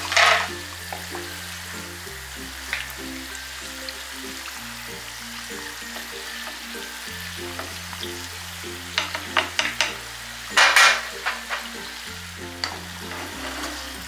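Two empanadas deep-frying in hot oil in a frying pan, a steady sizzle. Wooden spatulas and a wire skimmer click and scrape in the pan as the pastries are turned, with loud bursts of sizzling just after the start and about ten and a half seconds in. Background music plays under it.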